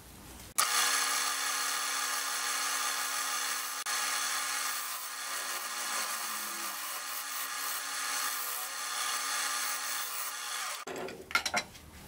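Wood lathe spinning a pine block while a turning tool cuts inside its recess: a steady hissing scrape with a faint steady hum underneath. It starts suddenly just under a second in and stops suddenly near the end. This is a light trimming cut to widen the recess so that a plastic cap fits.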